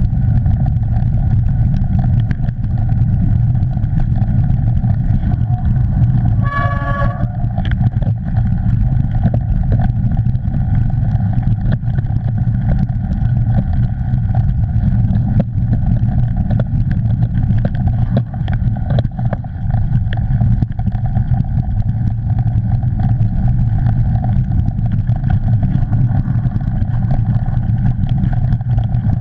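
Wind buffeting the camera microphone and the rumble of a mountain bike rolling fast over a dirt forest trail, with scattered knocks and rattles from bumps. About seven seconds in, a brief high-pitched wavering tone sounds over the rumble.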